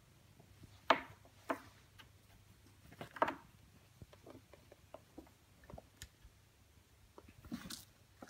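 Ragdoll kittens' claws and paws scrabbling on a corrugated cardboard cat scratcher: a scatter of sharp scratches and taps, the loudest about a second in, at a second and a half and around three seconds, with a longer scratchy rustle near the end.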